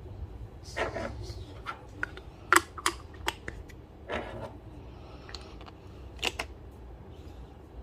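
Coffee beans being weighed out and handled: scattered rattles and light clicks, with a few sharper clicks about two and a half to three seconds in and again near six seconds.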